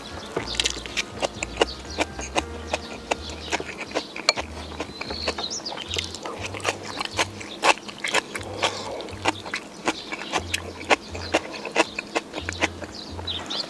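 Close-miked chewing and lip-smacking of someone eating, a quick irregular run of wet clicks, with soft background music underneath.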